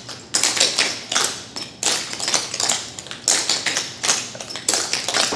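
Clogging taps on several dancers' shoes striking and brushing a hard floor, in a repeating rhythm of quick clusters of clicks.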